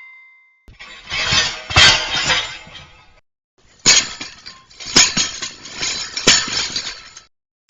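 Two metal sound effects, one after the other. First a clattering of metal that swells to a peak and fades out. After a short pause, a second clatter follows, with three sharp metallic strikes about a second apart.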